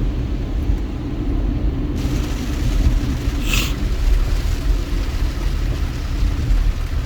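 Steady low rumble of a vehicle moving on a rain-wet road, heard from inside the cabin, with a hiss of tyres on the wet surface and one brief swish about three and a half seconds in.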